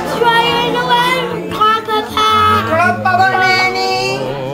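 Children singing, with music playing in the background.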